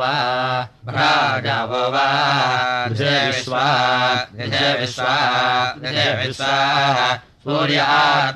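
Samaveda gana chanting of the Kauthuma recension by a low male voice: sustained melodic phrases that waver and glide in pitch, broken by three short pauses for breath.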